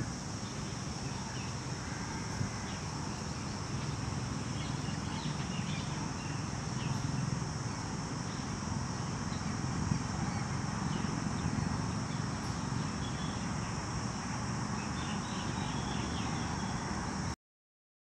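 Outdoor ambience: a steady high-pitched insect drone over a low rumble, with scattered faint bird chirps; it cuts off suddenly near the end.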